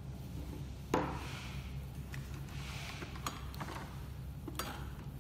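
Workbench handling sounds: a sharp knock about a second in as a screwdriver is set down, then a few light clicks and cloth rustling as the projector's plastic lens assembly is handled, over a steady low hum.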